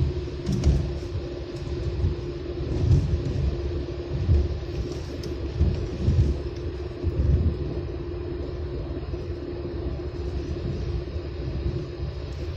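Road noise inside a car driving on a wet road: a steady low rumble of tyres and engine with a constant hum. Several heavier low thumps come in the first half.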